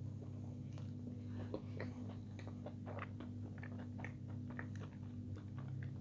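Close-up chewing of soft fried eggplant: irregular wet smacks and small mouth clicks a few times a second, over a steady low hum.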